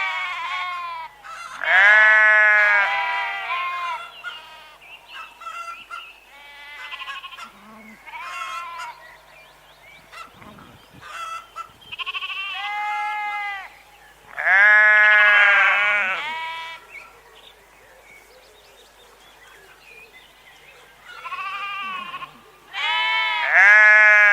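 Sheep bleating, about ten separate calls of differing pitch and loudness from more than one animal, with the longest, loudest bleats about two seconds in, around fifteen seconds in, and near the end.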